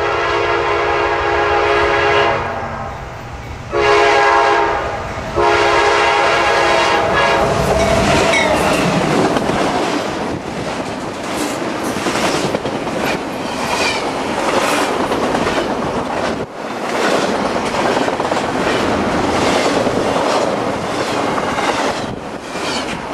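CSX freight locomotive's chime air horn sounding three blasts, long, short, long: the end of the grade-crossing warning. Then the locomotive and its double-stack container cars pass close by, wheels clicking steadily over the rail joints.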